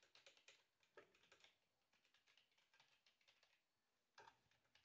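Faint computer keyboard typing: a quick run of key clicks in the first second and a half, then a few scattered keystrokes.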